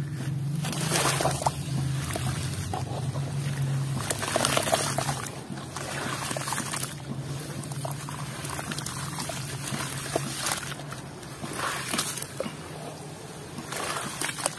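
Hands squeezing and crumbling a dusty block in a basin of muddy water: sloshing, splashing and trickling water in irregular surges as the lump breaks up.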